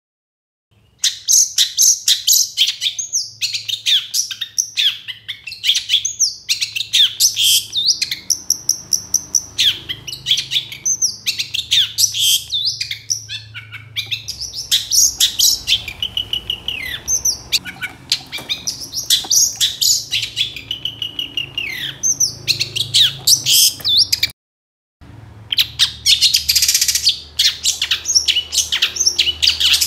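Long-tailed shrike (cendet) singing a fast, continuous, varied song of high chirps, whistles and trills. It breaks off briefly about three quarters of the way through, then resumes.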